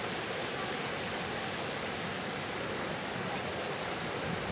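Water of a small rock cascade falling steadily into a garden pond, an even splashing noise without a break.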